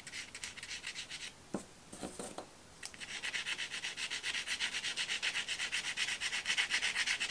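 A square NuPastel hard pastel stick scratching across paper in rapid hatching strokes. There is a brief flurry, a pause of about two seconds, then a steady fast run of strokes.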